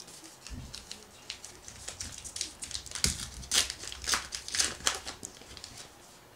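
A 2001 Bowman Heritage baseball card pack's wrapper is torn open and peeled back by hand. It gives a run of sharp crinkles and crackles that is loudest past the middle.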